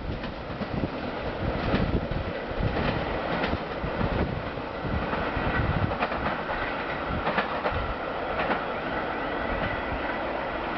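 Edelaraudtee DR1 diesel multiple unit running away along the track: a steady rumble with irregular sharp clicks of wheels over the rails, and a faint ringing tone from the rails.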